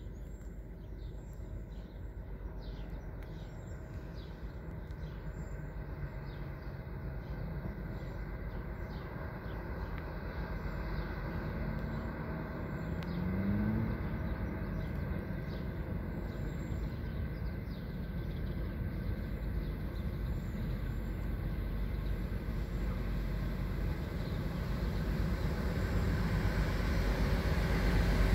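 Rumble of an approaching diesel freight train, led by a new Tier 4 EMD SD70ACe locomotive with empty coal hoppers, growing steadily louder as it nears.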